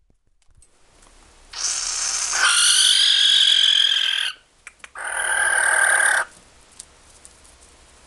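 Barn owl giving its food-begging call: two long hissing calls, the first starting about a second and a half in and lasting nearly three seconds, the second shorter, about a second after it.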